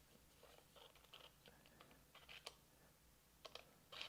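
Faint, irregular small plastic clicks and ticks from a toy plastic tape measure being handled.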